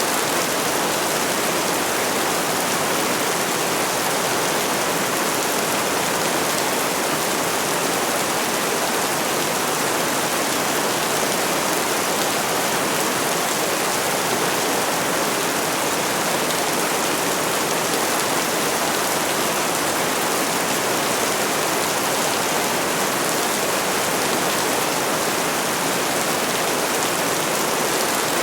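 Heavy rain falling steadily, a dense, even hiss with no separate drops or thunder standing out.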